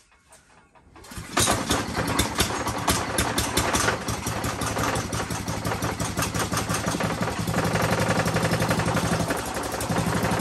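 A pressure washer's small gas engine, pull-started by its recoil cord, catches about a second in and runs with a fast, even firing beat, dipping briefly near the end. It is spinning the newly welded mud-motor drive shaft with no propeller fitted yet.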